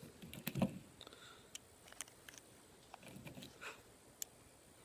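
Faint, irregular clicks and small metallic taps of 9mm cartridges being pressed one at a time into a Taurus pistol's 18-round magazine.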